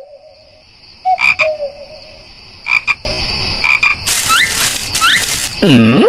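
Short croaking animal calls, then two quick rising chirps about four and five seconds in over a hiss, ending in a pitched call that swoops down in pitch.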